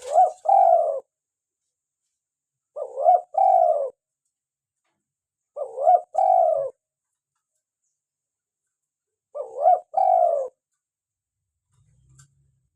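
Spotted dove cooing: four phrases a few seconds apart. Each phrase is a short note followed by a longer, lower coo, about a second in all.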